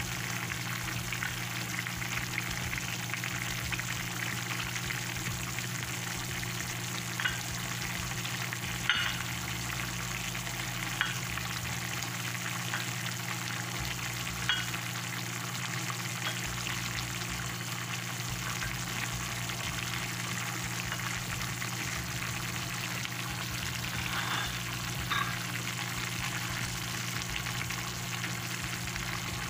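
A pork and shrimp-paste stew boiling in a stainless pan on the stove: a steady bubbling and sizzling, with a few light clicks as eggplant slices are set in the pan. A low steady hum sits underneath.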